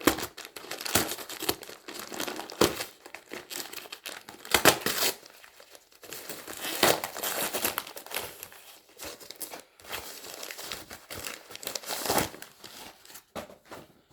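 A parcel's packaging being torn open and crumpled by hand: irregular crinkling, rustling and tearing, with a few louder bursts.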